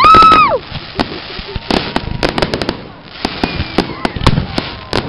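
Fireworks grand finale: dense, rapid popping and crackling of many shells bursting at once. It opens with a loud high-pitched call that rises, holds for about half a second and falls away.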